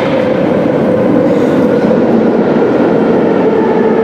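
Metro train pulling into an underground station: a steady rumble that builds over the first second, with a motor whine that slowly falls in pitch as the train slows, and higher whines joining about halfway through.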